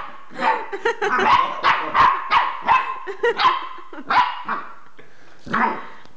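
Jack Russell terrier puppy barking in a rapid string of short barks, pausing for about a second before one more bark near the end. The barking is agitated and aimed at an unfamiliar new toy, which the owner thinks she sees as a threat.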